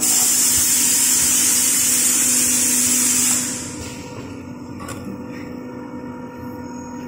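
Filling-line machinery running: a loud, steady hiss for about the first three and a half seconds, then a quieter steady hum, with a single click about five seconds in.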